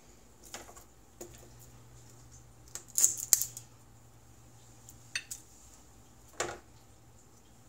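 Scattered clinks and knocks of dishes and utensils being handled in a kitchen, about five separate touches, loudest as a quick cluster of clinks about three seconds in.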